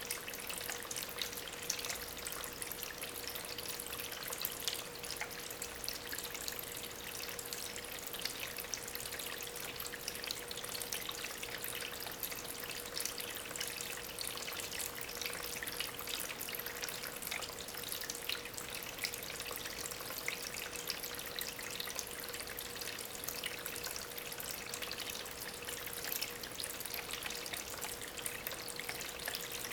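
Water from a small homemade waterfall trickling and splashing steadily over stones, with many fine droplet splashes. A faint steady hum runs underneath.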